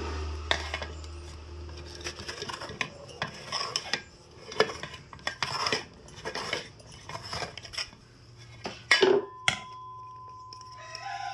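Aluminium cake tin knocking, clinking and scraping against a metal cake turntable as a baked sponge is worked loose and the tin is turned over, with a cluster of louder knocks about nine seconds in.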